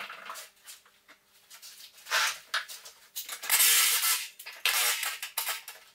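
Hand-work handling noises at the foot of a wall: a few short scrapes and rustles, the loudest a longer scrape lasting under a second about three and a half seconds in.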